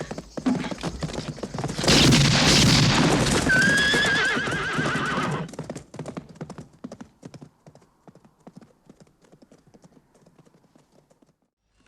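Horses galloping, with one horse whinnying in a long, wavering call about three and a half seconds in; the hoofbeats then fade away into the distance.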